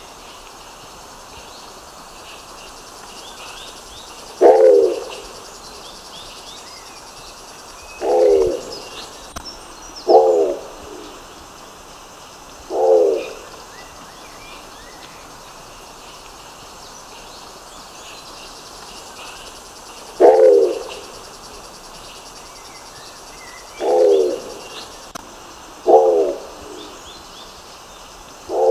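Nicobar pigeon giving short, low calls, about eight in all, spaced a few seconds apart with a long pause in the middle.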